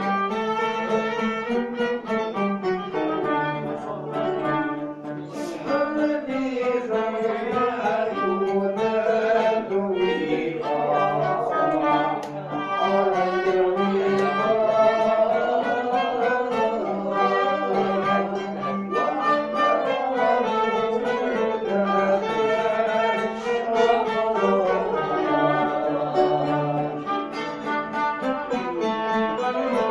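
Algerian Andalusian music in the Zidane mode, a violin-led string ensemble playing a flowing melody over a steady low note.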